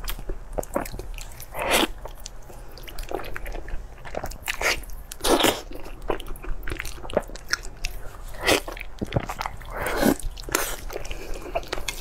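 Close-miked mouth sounds of a person biting into and chewing sauce-glazed eel: irregular sharp bites and chews, a few loud ones every second or two.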